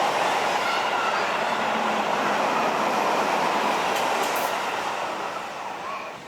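Seibu Railway electric train running along the track, its wheels rumbling on the rails with a few faint brief squealing tones. The sound fades away over the last second or so.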